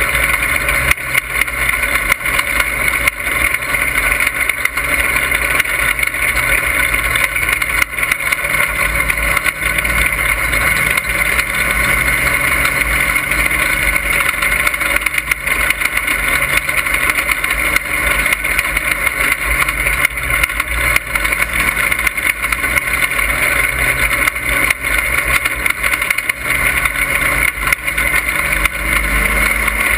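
Dirt-track race car's engine running hard at racing speed, heard from inside the cockpit as a loud, steady drone with road and wind noise.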